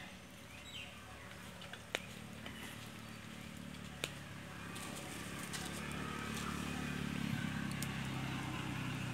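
Wood and charcoal fire under a grill rack popping sharply twice, about two seconds apart, with faint crackle. A low steady hum grows louder in the second half.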